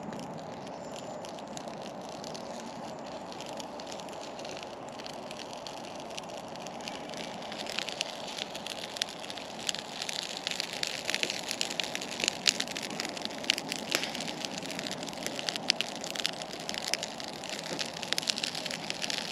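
Small kindling fire of dry grass and twigs catching, crackling with sharp pops that come thicker from about seven seconds in as the flames take hold, over a steady low background hum.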